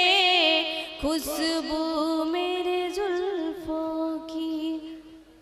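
A woman singing a slow melody with long, wavering held notes. Her voice breaks off briefly about a second in and trails away near the end.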